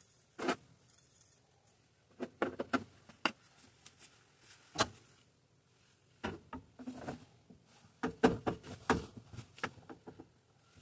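Light knocks and clicks of a gloved hand handling white PVC drain pipe and fittings, coming in several short clusters with quiet gaps between.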